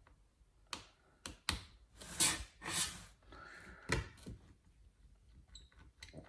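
Small metal clicks and taps of a screwdriver and screws on a laptop's case, with two brief scraping rustles about two seconds in, as the hinge screws are taken out.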